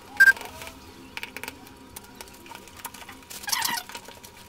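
Graphics card box and packaging being handled: a short sharp squeak just after the start, scattered light clicks, and a burst of rustling about three and a half seconds in.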